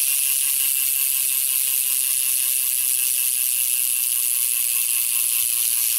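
Shadow Raptor BMX rear cassette hub freewheeling as the wheel spins, its pawls clicking so fast they run together into a loud, steady ratcheting buzz. The buzz cuts off suddenly at the very end.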